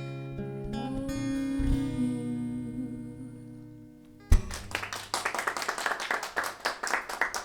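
Final strummed guitar chords at the end of a song, ringing out and fading over about four seconds. Then a sharp knock and clapping.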